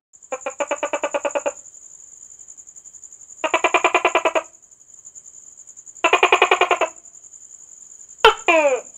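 A gecko calling in three quick chattering bursts of chirps, each about a second long, then near the end a sharp click followed by two quick falling chirps. A steady high-pitched whine runs behind.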